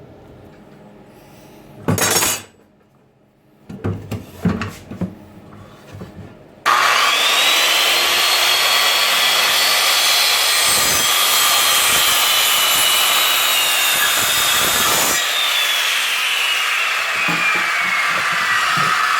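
A few knocks and thumps, then an electric power saw starts suddenly, its motor whine rising, and cuts through a cedar 2x6 board for about eight seconds. The saw is then switched off and its whine falls steadily as the blade spins down.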